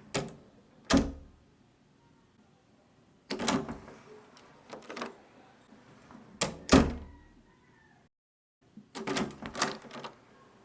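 A door being opened in several separate takes: sharp clicks of the handle and latch in short clusters, the loudest clicks with a low thud beneath. Brief quiet gaps fall between the takes.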